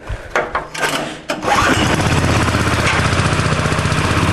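Small go-kart engine being started: a few short rattling bursts as it is cranked, then it catches about a second and a half in and runs steadily with a fast, even beat.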